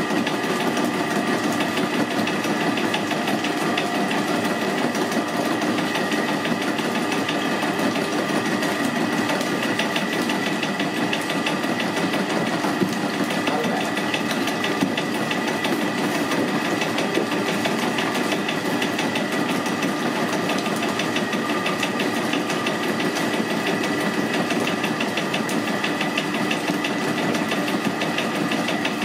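Electric bakery mixer running steadily as its beater whips a large bowl of cream, a continuous machine hum with a fast rattling texture.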